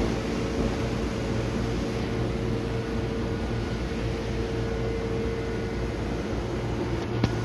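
Steady hum and whir of a stationary electric commuter train's onboard equipment (air conditioning and auxiliary units) idling at the platform. A single short click comes near the end.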